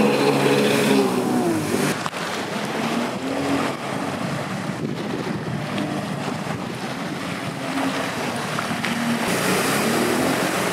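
Sea-Doo Spark jet ski's three-cylinder engine revving up and down through hard sliding turns, its pitch rising and falling, with the rush and splash of water thrown off the hull. The engine is plainest at the start and again near the end, with water and wind noise filling the middle.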